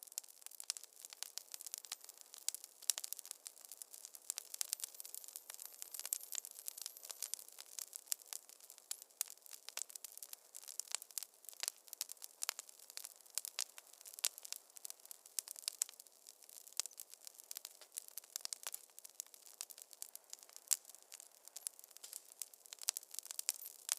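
Wood fire crackling in a fireplace: a dense, irregular run of small pops and snaps.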